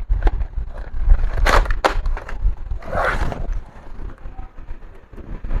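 Hands reassembling a laptop's plastic case and screws: scattered sharp clicks and taps, a short scrape about three seconds in, over low bumps of handling.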